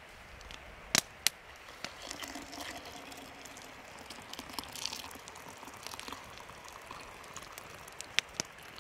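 Hot water poured from a metal camp pot into a press mug of ground coffee, filling with a steady hiss. A few sharp clicks stand out: two about a second in and two near the end.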